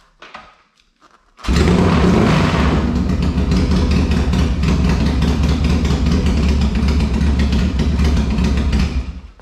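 1973 Yamaha TX650's parallel-twin engine with a cored-out exhaust, catching on the first kick about a second and a half in. It is on its first startup after a carburettor rebuild, running steadily on choke with no throttle, and is really loud. It cuts off abruptly near the end.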